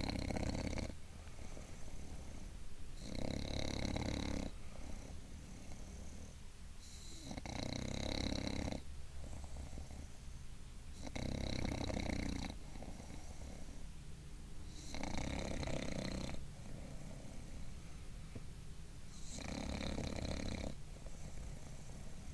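Bulldog snoring in its sleep while sitting up: a snore about every four seconds, each one about a second and a half long, with quieter stretches in between.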